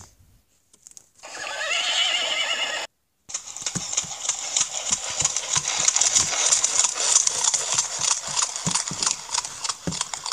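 A horse whinnies in one wavering call, then after a short break comes a long run of quick clip-clop hoofbeats, like a horse cantering.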